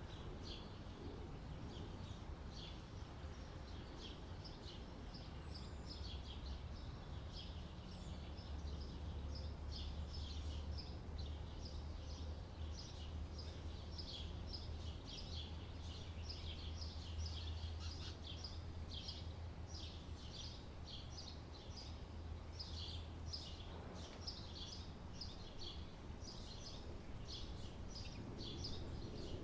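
Summer ambience of many small birds chirping in quick, overlapping short calls, over a steady low rumble.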